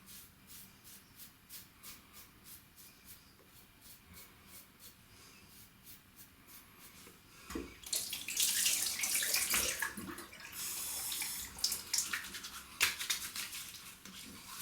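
Merkur 34C safety razor strokes scraping through oiled stubble, faint and repeated. About seven and a half seconds in, a water tap runs for several seconds as the razor head is rinsed, followed by a few sharp clicks.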